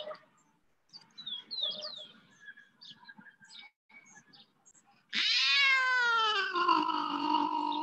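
A cat's long, loud meow starting about five seconds in, falling in pitch and then held for about three seconds. Before it, a few faint short chirps.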